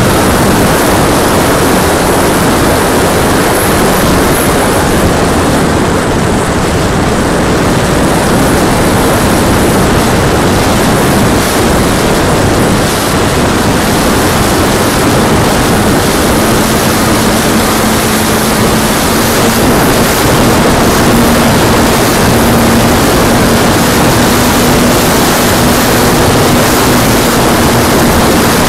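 RC airplane propeller and motor in flight, heard through the plane's own onboard camera microphone as a loud, steady rush of prop wash and wind noise. A faint steady hum comes in about halfway through and rises slightly.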